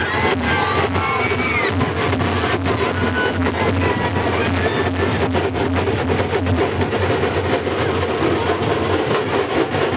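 Loud music with a steady, driving drum beat.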